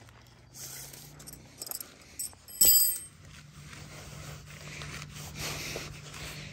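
Nylon tent fabric of a bivy tent rustling and scraping as it is handled and set up, with one sharp, ringing clink about two and a half seconds in.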